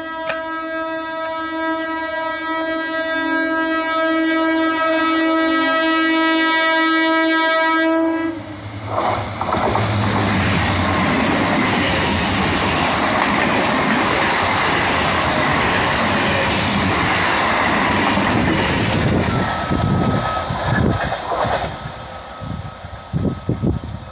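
South Eastern Railway EMU local train sounding one long, steady horn blast for about eight seconds as it approaches. It then runs past at speed, a loud rush of wheels on rails, with the clickety-clack of wheels over rail joints as the last coaches go by and the sound fades near the end.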